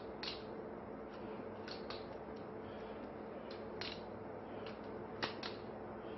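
Butterfly knife being flipped: its metal handles clack against each other and the blade in short, irregular clicks, a sharper pair a little past five seconds in.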